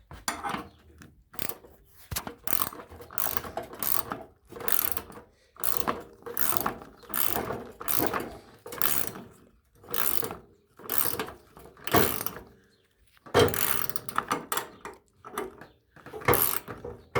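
Hand socket ratchet being worked on a nut, its pawl clicking in a long run of short back-and-forth strokes, about one and a half a second, with a brief pause about three-quarters of the way through.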